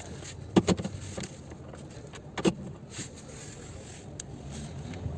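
Hand tools clinking on steel under a car as a socket is fitted to the subframe bolts: a quick cluster of sharp metal knocks about half a second in and a single knock about two and a half seconds in, over a steady low rumble.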